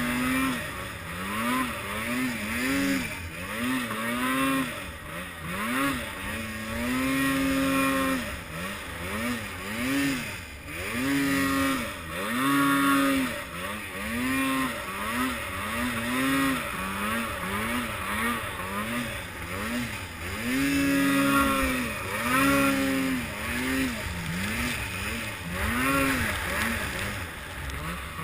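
Arctic Cat M8 snowmobile's two-stroke engine revved up and down over and over, its pitch rising and falling every second or two as the throttle is worked.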